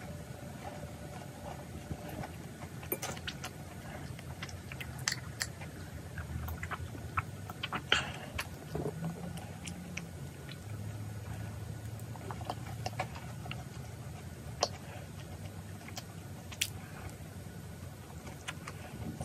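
A person biting and chewing large macarons: scattered small crisp crunches of the shells and chewing sounds, the sharpest about eight seconds in, over a low steady hum.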